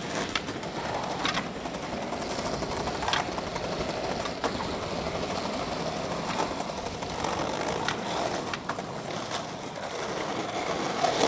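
Skateboard wheels rolling over rough street asphalt and paving stones, a steady rolling noise with a few sharp clacks from the board scattered through it.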